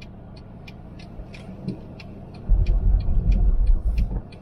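Strong storm wind buffeting a moving car. The deep rumble turns loud and gusty about halfway through, over steady road noise and a light ticking about three times a second.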